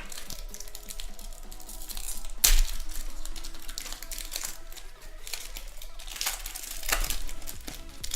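Foil trading-card booster packets being torn open and crinkled, with a loud rip about two and a half seconds in and another near the end. Background music plays underneath.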